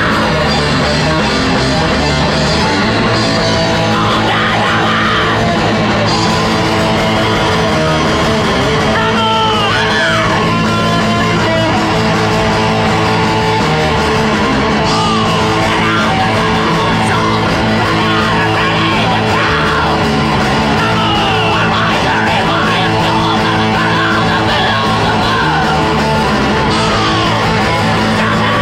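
Death metal band playing live: distorted electric guitars and a drum kit, loud and unbroken throughout.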